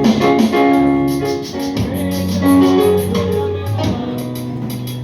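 Worship band music: keyboard chords held and changing every second or so, over light, evenly repeated percussion ticks.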